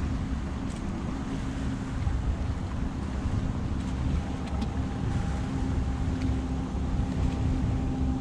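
Wind buffeting the microphone over the steady hum of a bass boat's electric bow-mounted trolling motor.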